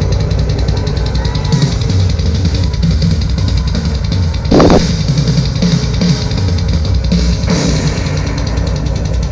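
Drum-heavy music with a strong bass line playing through a Dayton Audio 2x50 W Bluetooth speaker kit in a solid-wood band-pass box, picked up by a tablet's microphone in the room. A loud crash-like hit cuts through about halfway.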